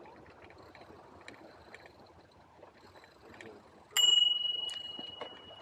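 Bicycle bell struck once about four seconds in, a bright single-note ring that fades over about a second and a half. Before it, the faint rolling noise of the bike with light clicks.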